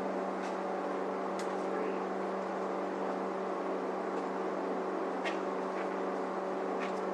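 Steady electrical machine hum at one unchanging pitch, with a few faint clicks over it.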